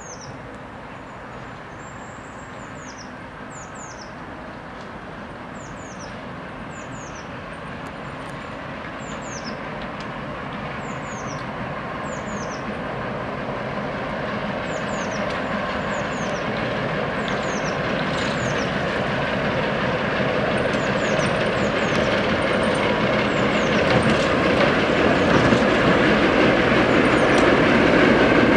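Class 08 diesel shunter's English Electric six-cylinder diesel engine running as the locomotive approaches at slow shunting speed, growing steadily louder until it passes close by. A bird calls over it with short falling chirps, repeated every second or two.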